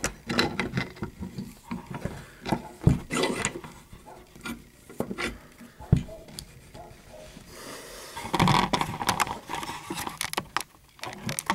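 Irregular small clicks, knocks and scrapes of a metal lever lock being handled and positioned, with a louder scraping stretch about two-thirds of the way through.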